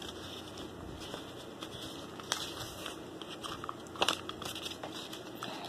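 Light handling sounds of craft-foam petals and a hot glue gun as a petal is glued on: soft rustling with scattered small clicks, the sharpest about two seconds in and again about four seconds in.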